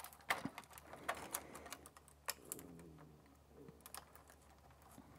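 Faint, scattered small plastic clicks and taps as the wire connectors are fitted onto the back of a Tesla battery monitoring board held against the battery module's plastic housing.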